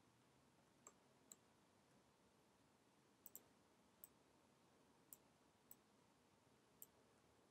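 Faint, sharp clicks of a computer mouse and keyboard used while modelling, about eight in all, including two in quick succession about three seconds in, over near silence.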